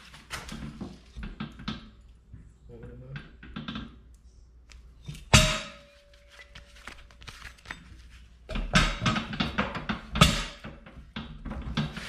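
Metal parts of a steering knuckle and wheel hub knocking and clanking on a shop press. One loud clang about five seconds in rings on for a couple of seconds, and a quick run of knocks follows near the end.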